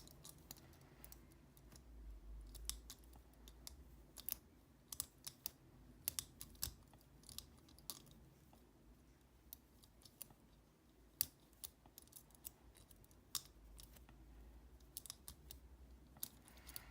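Faint, irregular metallic clicks and ticks of a lever lifter and tension tool working the levers inside an ERA five-lever padlock during lock picking. The sound cuts off suddenly at the end.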